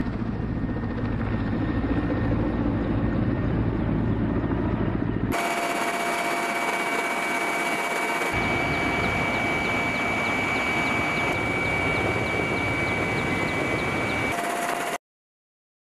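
Ka-52 attack helicopter flying: coaxial rotors and twin turboshaft engines running, with a steady high turbine whine in the later parts. Several clips are cut together, so the sound changes abruptly about five seconds in and again a few times after, the first part carrying more low rotor rumble.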